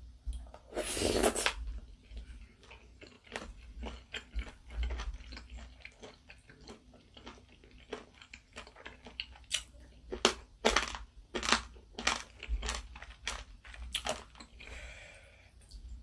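Close-miked eating of spicy seafood ramyeon: a loud slurp from a spoonful about a second in, then chewing with many short, sharp wet clicks.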